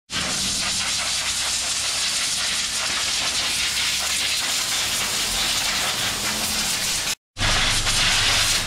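Steady, loud hiss with no pitch or rhythm, cut off briefly about seven seconds in and then resuming.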